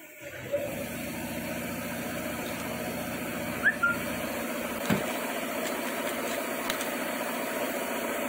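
A machine starts up about a third of a second in and runs steadily with an engine-like hum. There is a short rising squeak about halfway and a single click a second later.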